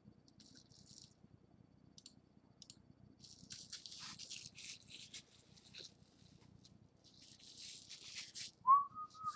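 Crinkling, rustling handling of card packs and wrappers, coming in bursts. Near the end there is a short high tone that bends upward, followed by a brief second one.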